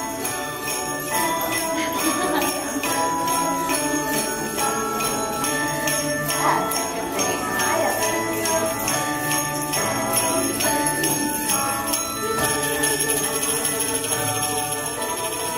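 Hand-held jingle bells shaken in a steady beat over a simple tune of held notes.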